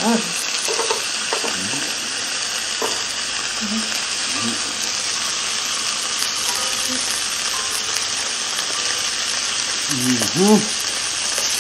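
T-bone steak, cassava balls and yellow bell pepper strips sizzling on the hot plates of a contact grill: a steady frying hiss.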